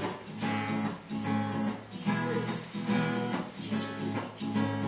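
Acoustic guitar strummed in a steady rhythm, an instrumental stretch between the sung lines of a song.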